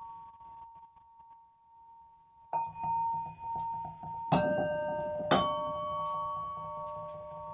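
Bianzhong-style bronze chime bells being struck: a ringing tone fades away, then a few strikes follow, the two loudest about four and five seconds in, each leaving long, overlapping ringing tones.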